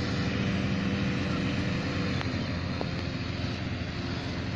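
Engine-driven hot air balloon inflator fans running steadily, blowing cold air into the balloon envelopes during cold inflation.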